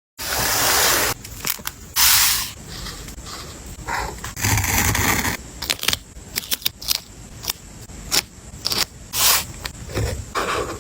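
Close-miked paper crafting sounds: paper and sticker sheets rustling and scraping in long hissy strokes, with a run of short sharp clicks and snips in the middle.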